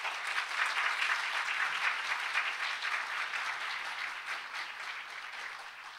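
Audience applauding, a dense even clapping that is loudest in the first couple of seconds and slowly dies away toward the end.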